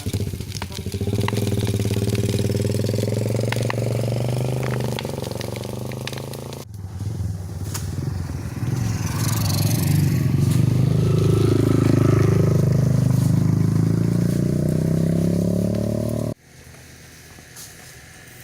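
Motorcycle engine running under way, its pitch rising and falling with the throttle. The sound breaks off abruptly about a third of the way in and resumes. Near the end it suddenly drops to a much quieter background.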